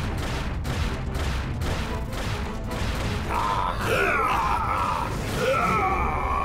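Cartoon robot-battle sound effects: a deep rumble with regular sharp thuds, about three a second, then, from about halfway, sliding, warbling electronic tones.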